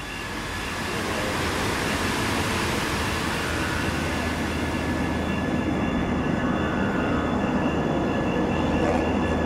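A steady rushing rumble fades in over the first second and then holds, with faint steady high whistling tones above it.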